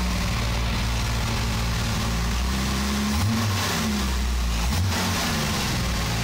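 Jaguar E-type's XK straight-six engine running as the car moves off slowly, its revs rising and falling briefly about three seconds in and rising again near five seconds.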